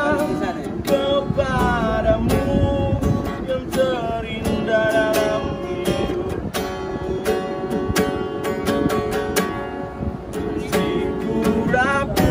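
Acoustic guitar strummed in a steady rhythm, with a man singing a melody along with it.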